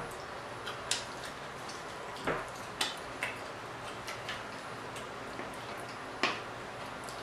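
Close-miked eating sounds: about half a dozen scattered sharp clicks and smacks of chewing and utensils, the strongest about a second in and near the end.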